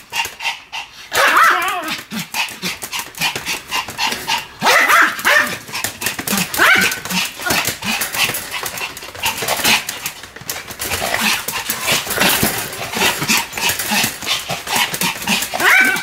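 Pomeranian barking every couple of seconds while spinning fast in tight circles, over a constant rapid clicking and scrabbling from its paws on the pen floor.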